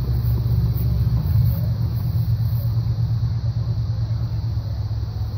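Low, steady rumble of wind buffeting the microphone, wavering in strength.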